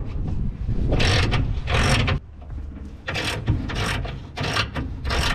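Socket ratchet clicking through about six short back-strokes while undoing a rusty bolt on a dozer's floor plate.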